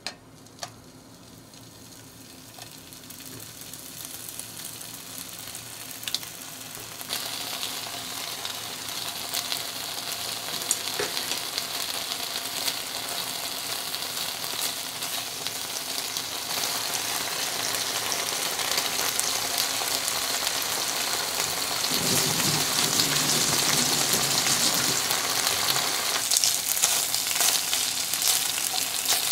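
Raw bacon strips sizzling in a nonstick frying pan. The sizzle starts faint and grows steadily louder as the pan heats, with a few sharp clicks in the first seconds.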